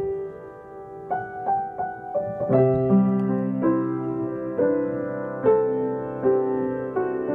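Upright piano being played: a slow, soft melody over sustained chords. It is quiet at first, single notes come in after about a second, and a fuller chord with deep bass notes enters about two and a half seconds in.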